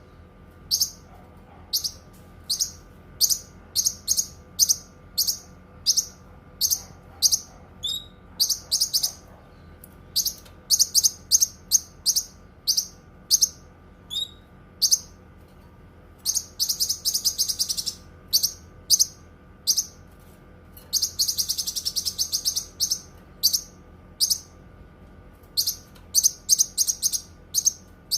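Cucak kinoi singing: a string of short, sharp, high-pitched chirps, one or two a second, broken twice past the middle by a longer rapid chattering run. A faint steady hum lies underneath.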